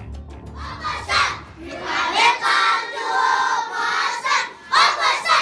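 A class of schoolchildren calling out loudly together in chorus, several times over. Background music with a steady beat fades out about a second in.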